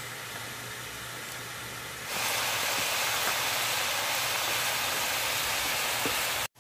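Chicken livers sizzling and bubbling in a wok over a wood fire, a steady hiss that jumps louder about two seconds in and cuts off suddenly just before the end.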